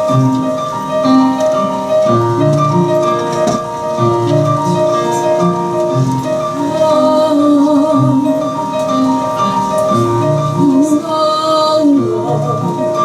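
Instrumental introduction of a song: a keyboard accompaniment plays repeated held notes over a moving bass line, before the vocal comes in.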